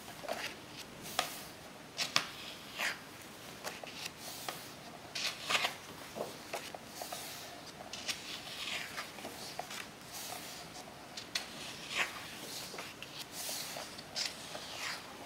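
Pages of a large photo book being turned and smoothed by hand: paper rustling and swishing, with an uneven swish every second or so and a few light ticks of paper edges.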